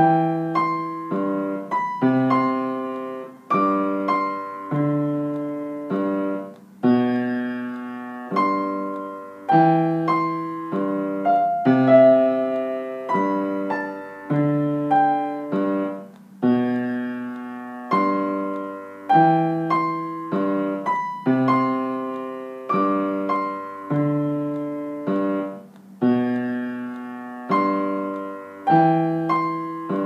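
Piano duet on an acoustic piano, both parts playing together: chords and bass notes struck in a steady rhythm, each ringing and fading before the next.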